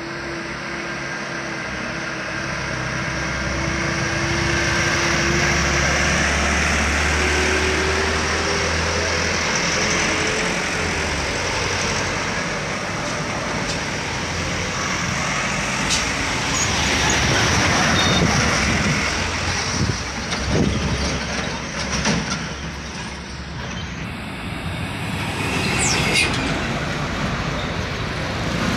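Convoy of sugarcane trucks driving past one after another on the road, their engines running. In the first several seconds the engine note rises slowly as the first truck closes in, then gives way to a louder rush of engines and tyres with a few knocks as the trucks go by.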